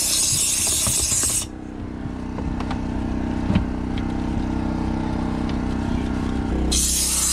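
Steam cleaner nozzle hissing as it jets steam, cutting off about a second and a half in. Then come softer rubbing and ticking sounds of a microfibre cloth wiping, with one sharp knock halfway. The steam hiss starts again near the end, over a steady low hum.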